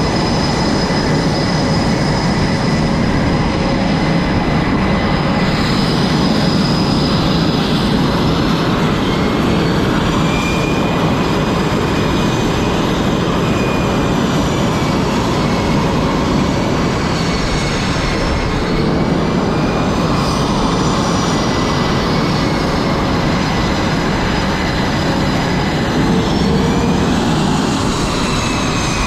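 Jet aircraft engines running on a carrier flight deck: a loud, steady roar with several high turbine whines that slowly rise and fall in pitch, one climbing near the end.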